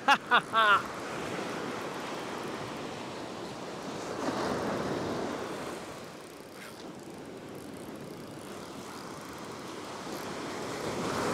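Surf washing up the beach with wind on the microphone, the rush swelling about four seconds in and again near the end. A few words of speech at the very start.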